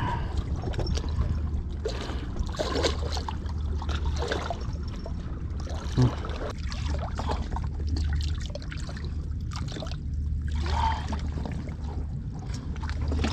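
Seawater washing and trickling among wet breakwater rocks over a steady low hum, with a single sharp knock about six seconds in.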